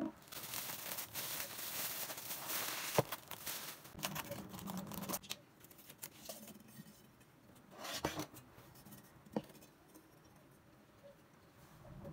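Cookware being unpacked: crinkly rustling of wrapping for the first five seconds, with a few sharp clicks as the pan handle and pans are set down. There is a short rustle about eight seconds in, then mostly quiet handling.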